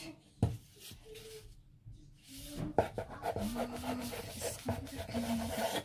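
Kitchen knife cutting a sheet of fresh pasta dough on a stone countertop: a few sharp taps of the blade against the counter and rubbing, scraping strokes.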